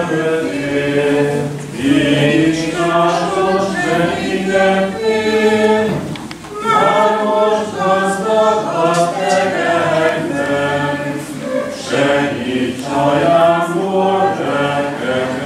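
A group of voices singing a song together, unaccompanied, in phrases of held notes with short breaks about two and six seconds in.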